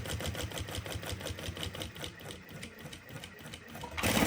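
Jack H6 industrial sewing machine stitching a seam with its automatic double bar tack, running in a rapid, even rhythm of needle strokes. A louder burst of noise comes near the end.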